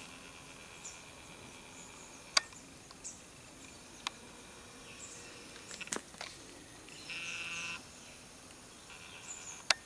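Outdoor garden ambience: a faint steady high insect drone with short high chirps, and a buzzing call lasting under a second about seven seconds in. Four sharp clicks or snaps stand out above it, the loudest near the start and just before the end.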